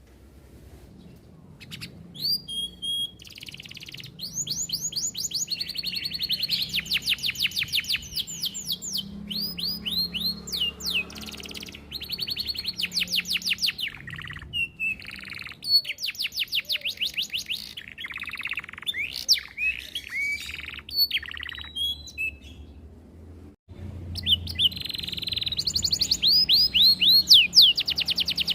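Domestic canary singing a long song of fast rolling trills: rapid runs of repeated high, quickly falling notes, changing from one trill type to the next. The song starts about two seconds in and breaks off briefly about three-quarters of the way through.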